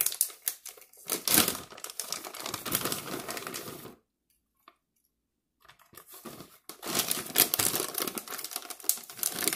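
A plastic bag of pecans crinkling as it is handled and shaken over the counter, in two spells with a pause of about two seconds in the middle.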